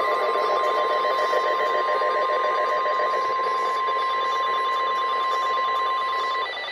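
NOAA Weather Radio warning alarm tone: a single steady 1050 Hz beep held for several seconds over radio hiss, cutting off near the end. It is the signal that an urgent warning, here a flash flood warning, is about to be read.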